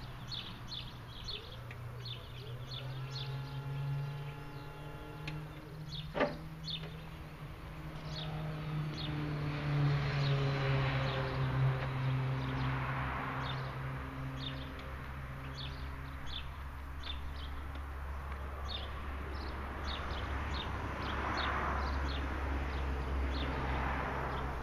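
Battery-electric hydraulic power unit of a JLG E300AJP articulating boom lift humming while the boom and jib are moved, with a whine that steps in pitch and a single sharp click about six seconds in. Birds chirp over it.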